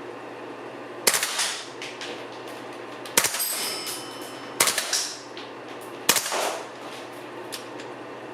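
WE M27 IAR gas blowback airsoft rifle firing four times, about a second and a half apart, each report fading out over about half a second.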